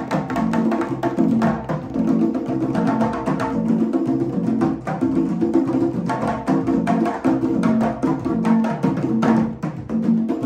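Several conga drums played together by hand in a steady, fast interlocking rhythm, with ringing pitched tones and sharp strokes.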